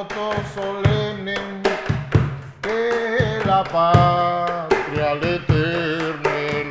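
Afro-Peruvian music: a voice singing long held notes over sharp, frequent hand-percussion strikes.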